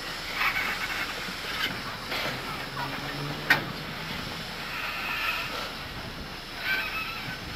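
Steam locomotive Pere Marquette 1225's tender rolling slowly past on the rails, a steady rumble of wheels with one sharp knock about three and a half seconds in.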